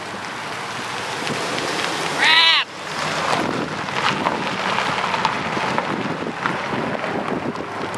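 Heavily loaded Chevrolet pickup truck driving slowly up a gravel driveway, its tyres crunching on the stones, with wind on the microphone. About two seconds in there is a brief loud squeal.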